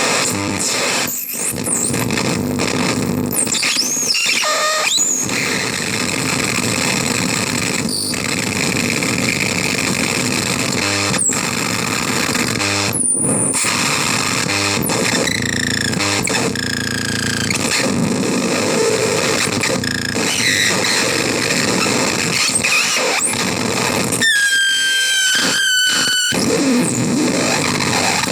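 Screaming Baby CMOS harsh noise synth putting out a loud, dense wall of distorted noise, with shrill squeals sliding up and down in pitch. The noise cuts out abruptly for split seconds now and then, and near the end it stutters on and off several times under stepped, falling squeals.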